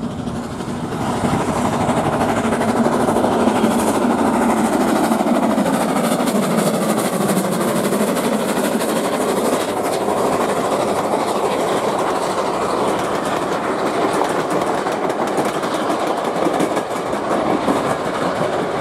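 BR Standard Class 9F 2-10-0 steam locomotive passing close with its train of Royal Mail travelling post office coaches, the heavy rolling sound of the train and wheels clattering over the rail joints. It swells about a second in and stays loud and steady.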